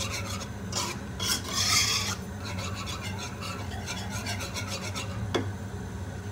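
A utensil stirring and scraping in a frying pan of thickening coconut-milk, condensed-milk and flour topping cooked over low heat. A few slower strokes give way to quick repeated strokes, and a single sharp tap comes about five seconds in.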